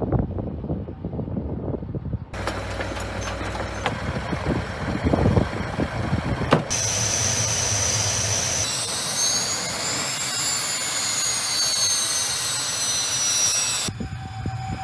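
Su-25 attack aircraft's twin turbojet engines running: a loud roar with a high, steady turbine whine that then wavers slowly up and down in pitch. Near the end the sound changes to a more distant jet with one steady tone.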